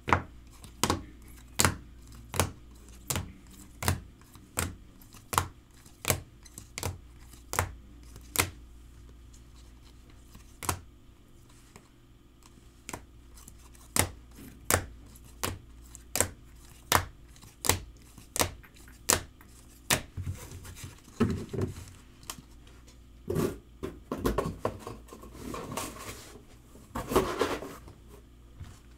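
Hard plastic trading-card cases clicking against one another as a stack of cased cards is flipped through one at a time, about one click every three-quarters of a second, with a pause of a few seconds partway through. Near the end, a longer stretch of plastic scraping and clattering as the cases are handled.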